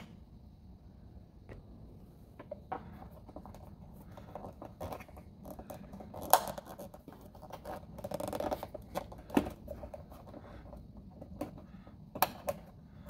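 Scattered small metal clicks, clinks and scrapes of a fuel pump mounting clamp and bolt being fitted by hand under the car, the sharpest click about six seconds in and others near nine and twelve seconds.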